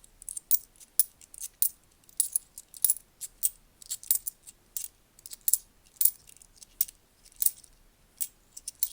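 10p coins clinking against each other and the table as they are sorted and flipped over by hand, an irregular run of sharp metallic clicks, about two or three a second.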